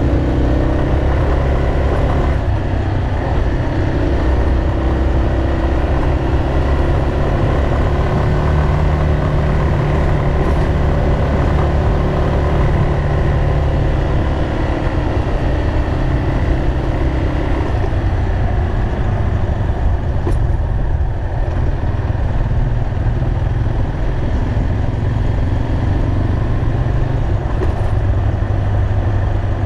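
Yamaha motorcycle engine running as it is ridden at low speed up a winding road; the engine note shifts in the first couple of seconds, then holds fairly steady.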